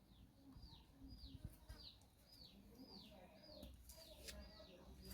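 Faint bird call: a high, short whistle falling in pitch, repeated evenly about twice a second.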